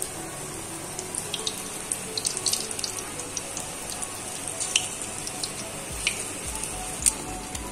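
Pakoras of gram-flour batter deep-frying in hot oil in a kadhai: a steady sizzle with frequent sharp, irregular crackles and pops. About six seconds in, more batter is dropped into the oil.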